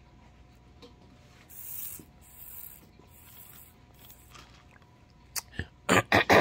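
Handling noise while pills are taken with water: soft crinkling and rustling from about a second and a half in, then sharp clicks and louder rustling knocks near the end, over a faint steady hum.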